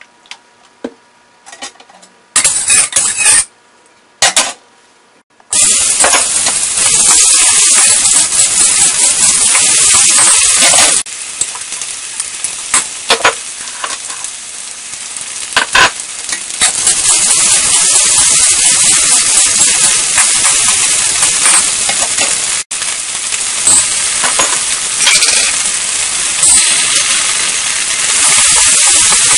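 Garlic and other aromatics frying in hot oil in a wok: a loud, steady sizzle that starts about five seconds in, eases off around the middle and swells again. A metal spatula scrapes and clinks against the wok.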